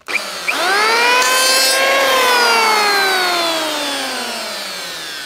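Electric hand planer switched on. Its motor whines up to speed over about two seconds, then winds down with a slowly falling, fading whine.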